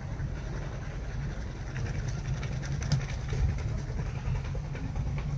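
Wood fire burning inside a tandoor: a steady low rumble with scattered faint crackles.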